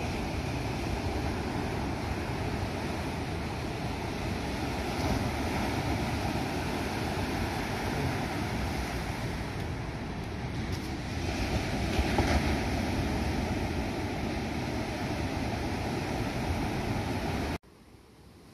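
Wind buffeting the microphone over a steady low rumble, with no clear events, cutting off suddenly near the end.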